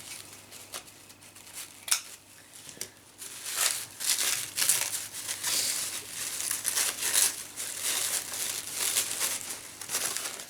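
Gift wrapping being crinkled and pulled open by hand: scattered rustles and a sharp click at first, then a busy run of crinkling from about three seconds in.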